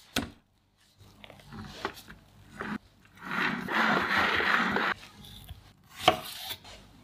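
Metal spatula scraping strawberry whipped cream smooth around the side of a cake, a steady rasp lasting nearly two seconds. About six seconds in, a knife slices through a strawberry with a sharp tap on a wooden cutting board.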